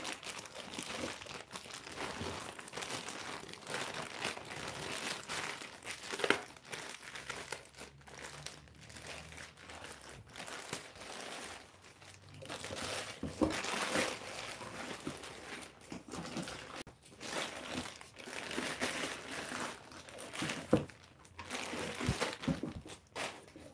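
A clear plastic bag crinkling and rustling as it is pulled off and crumpled from around an inverter, with a few sharper knocks along the way.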